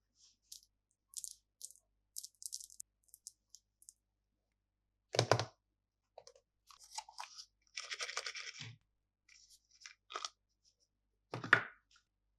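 Crinkling and rustling of plastic candy packaging being handled and opened, in short scattered bursts with a longer rustle near the middle. Two louder knocks, about five seconds in and near the end, are the loudest sounds.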